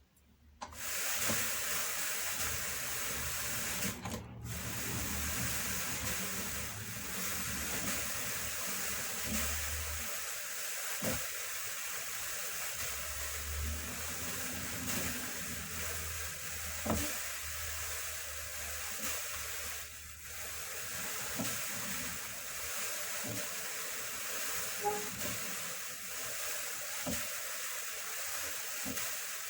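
Drum carder turning, its carding cloth brushing through wool as fibre is fed in: a steady hiss with a low rumble that starts about a second in, and a few light knocks.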